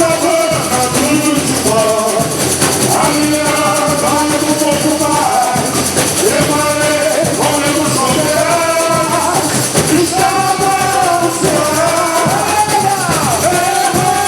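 Samba-enredo being sung by voices over samba percussion keeping a steady, driving beat.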